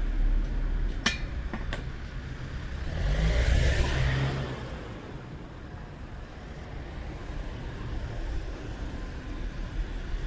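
A motor vehicle passing along the street, its noise swelling and fading about three to four seconds in. Two sharp clicks come about a second in, before it passes.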